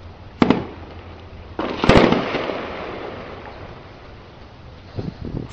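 Heavy weapons fire during a tank assault and shelling of a city. A sharp crack comes about half a second in, then a louder blast about a second and a half later that rolls and echoes off the buildings for over a second.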